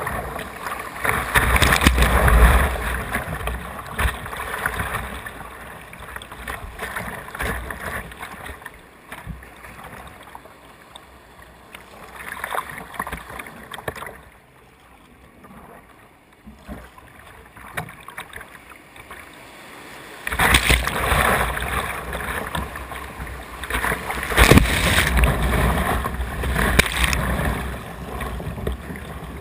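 Whitewater rapids rushing and splashing over a kayak's bow, close up. Loud at first, quieter for a stretch in the middle, then loud rushing with sharp splashes again from about two-thirds in.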